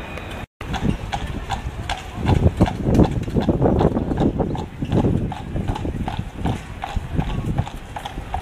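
Horses' hooves clip-clopping on a paved road in a steady walking rhythm, a few strikes a second, as a pair of horses pulls a carriage past.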